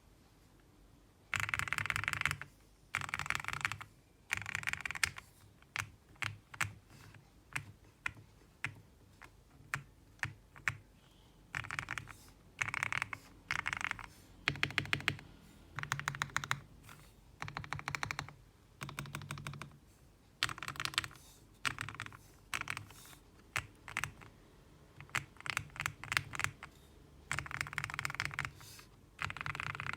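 Typing on a CIY GAS67 mechanical keyboard with lubed Gateron Yellow linear switches. The keys are struck in quick runs of about a second each, with short pauses and scattered single presses between them.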